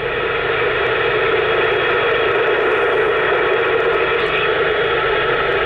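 Steady static hiss from a CRT 9900 CB radio's speaker on SSB: open band noise with no readable station.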